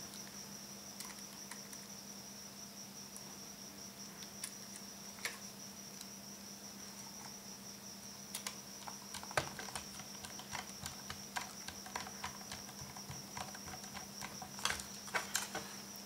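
Small screwdriver driving screws into the side of a laptop hard drive's metal mounting caddy: faint scattered clicks and ticks, more frequent in the second half. A steady faint high-pitched whine and low hum run underneath.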